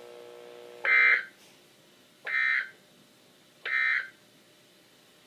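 Three short bursts of Emergency Alert System SAME digital data tones, about a second and a half apart: the end-of-message code that closes the special marine warning broadcast.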